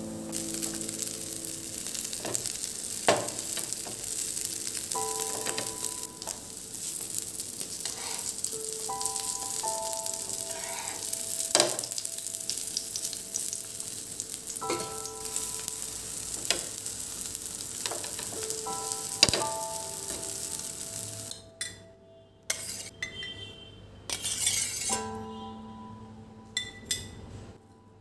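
Vegetable patties sizzling steadily in oil on a flat iron tawa, with a few sharp clicks. Near the end the sizzling stops and a fork clinks against glass containers. Quiet background music throughout.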